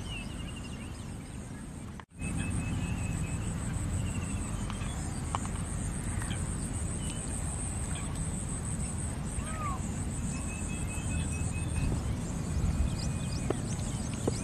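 Evening waterside ambience: a steady high insect drone, short quick runs of bird chirps now and then, and a low rumble underneath.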